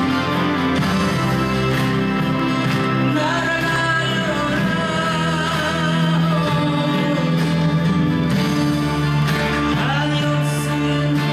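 A man singing a song live into a microphone while playing an acoustic-electric guitar, the voice carrying a held melody over steady low accompaniment.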